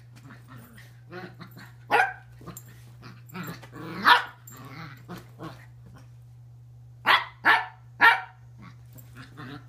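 Dog barking: single barks about two and four seconds in, then three quick barks near the end, with quieter grumbling noises in between.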